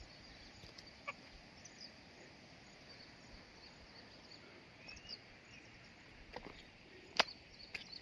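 Faint countryside ambience: a few short, scattered bird chirps over a steady faint high hiss, with one sharp click about seven seconds in.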